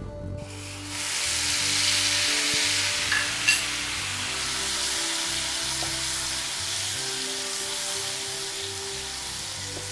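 Tomato, onion and ginger paste going into hot mustard oil in a frying pan and sizzling. The sizzle starts about half a second in, is loudest over the next couple of seconds, then settles to a steady sizzle as the paste is stirred with a spatula.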